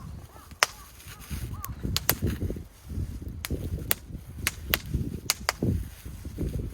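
A string of sharp, irregular cracks and snaps over a gusting low rumble of wind buffeting the microphone.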